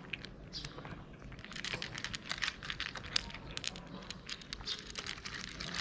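A cat chewing dry kibble: a rapid run of small crisp crunches, thicker after the first second or so.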